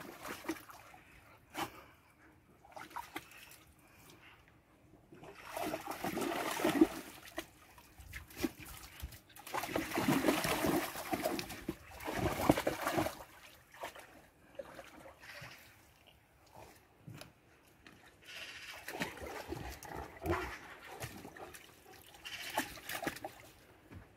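German shepherd dogs splashing and wading in a small plastic paddling pool: irregular bouts of sloshing water, with quieter stretches between.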